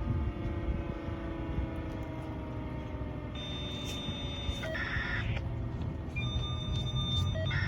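Federal Signal Thunderbolt 1000T outdoor warning siren winding down, its several tones sliding slowly lower and fading out over the first few seconds, over a steady low rumble. A short burst of hiss with a high steady tone follows about halfway through.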